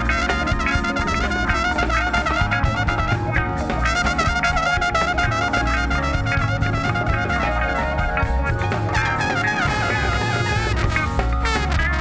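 Jazz-inflected band music led by trumpet and trombone over a steady drum beat.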